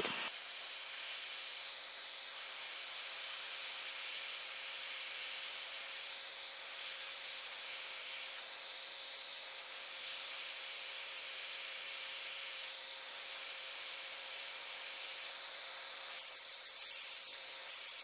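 Handheld hot air rework gun blowing a steady hiss of hot air onto a circuit board, with a faint steady tone beneath, as it melts the solder holding a corroded USB-style connector.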